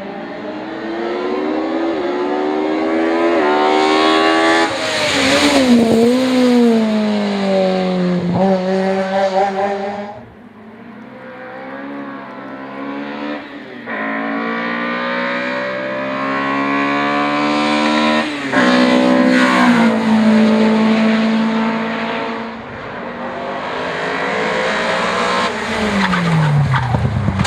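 Opel Kadett C hillclimb car's four-cylinder engine at full throttle, revving up and upshifting repeatedly with sharp steps in pitch as it climbs past. The sound fades about ten seconds in, then builds again through more gear changes, and the pitch drops steeply near the end as the car goes by.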